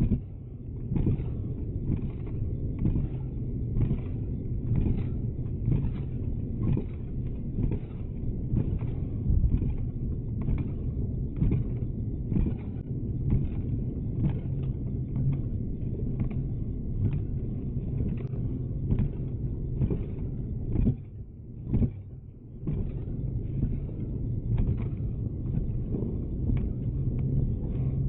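Riding noise from a Xiaomi M365 electric scooter on rough ground: a steady low rumble with a short knock about twice a second, dropping away briefly twice about three-quarters of the way through.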